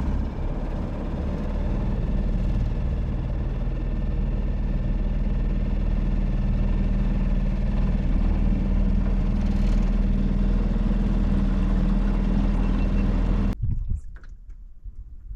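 Outboard motor on a small aluminium boat running steadily with an even low hum. It cuts off abruptly about 13.5 seconds in, leaving only a few faint ticks.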